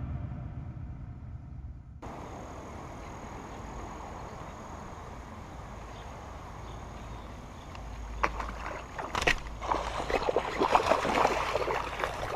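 Background music fades out, then a small stream runs with a steady rushing hiss. From about 8 seconds in, irregular splashing and sloshing of water rises over it and grows loudest near the end.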